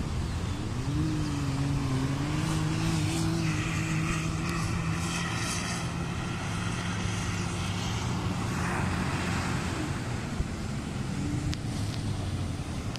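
Side-by-side UTV's engine revving up about a second in as it launches from the start, then running at steady high revs until it fades out about ten seconds in.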